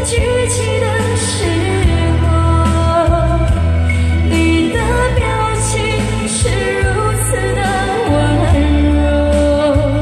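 A Chinese pop ballad performed live to a karaoke backing track over a PA system, with a woman singing into a microphone.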